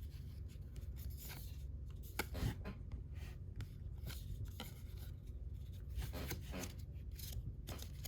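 Baseball trading cards slid against one another as a stack is thumbed through: a run of short, irregular scratchy swishes and rubs of card stock.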